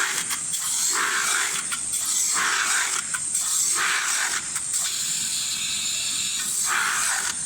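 CNC metal spinning machine running, its forming roller pressing a spinning galvanized iron blank into a hopper shape. It makes a steady metallic hiss with uneven scraping swells every second or so.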